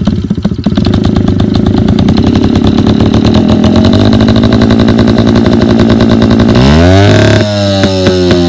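Yamaha Chappy LB50's small two-stroke single-cylinder engine running with a rapid, even firing beat, then revved near the end, its pitch climbing and falling back.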